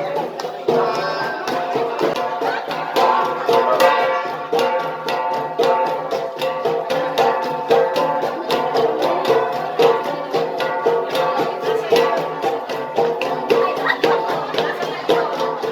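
Ensemble of gangsa, flat bronze Igorot gongs, struck in a fast, even rhythm of about four strokes a second, their ringing tones overlapping.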